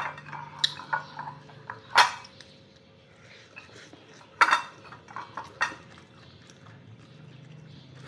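A ceramic plate clinking and tapping as rice is eaten from it by hand: a scatter of sharp clinks with soft scraping between, the loudest about two seconds in and again about four and a half seconds in.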